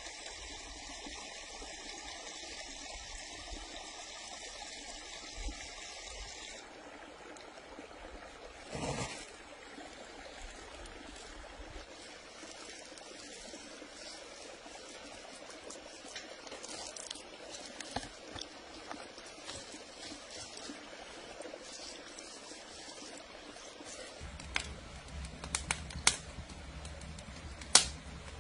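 Olive oil trickling from a ceramic bottle onto raw beef, over a steady watery hiss that cuts off about a quarter of the way in. Near the end a low rumble with sharp crackles comes from a wood fire under a cast-iron pan.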